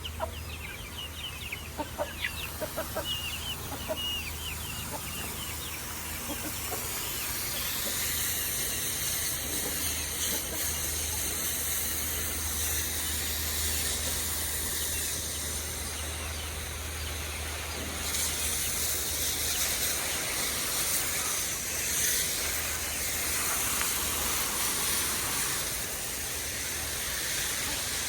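Chickens clucking in short calls for the first few seconds, then a steady hiss of water spraying from a garden hose that grows louder about two-thirds of the way through.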